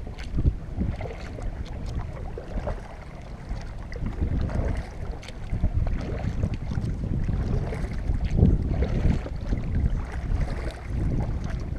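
Kayak paddle strokes dipping and splashing, with water sloshing along the hull, under a steady low rumble of wind on the microphone.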